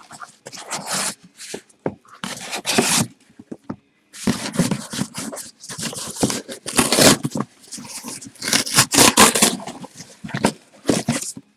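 Cardboard scraping and rustling: sealed hobby boxes sliding against their cardboard shipping case and against each other as they are pulled out and stacked. The sound comes in irregular bursts with short pauses between them.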